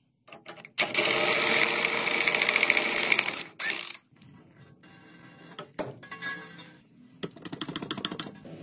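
A handheld power tool running in a burst of rapid mechanical chatter for about two and a half seconds, then a few clicks and knocks, then a second, quieter chattering run near the end.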